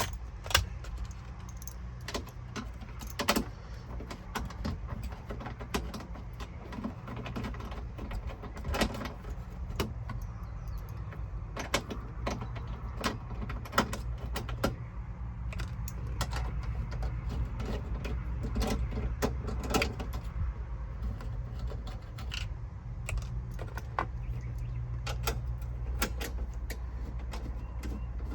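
Socket wrench on a 5/16 socket loosening the radio's mounting bolts: irregular metallic clicks and clinks, over a steady low hum.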